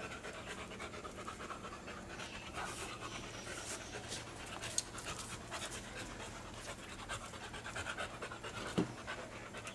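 Boxer dog panting quickly and steadily at close range, with a sharp click about halfway through and a short low sound near the end.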